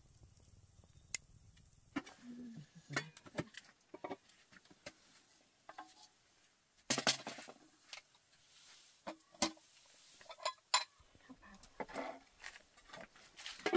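Dishes and utensils clinking and knocking: a string of sharp, irregular clatters that starts about two seconds in, with a few brief murmurs between them.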